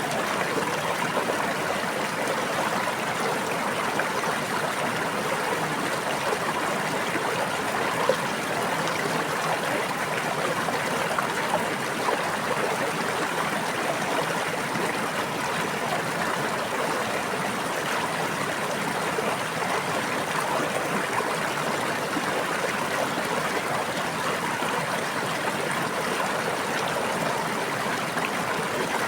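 Running water of a stream or brook, babbling steadily with no music, with a few brief louder moments.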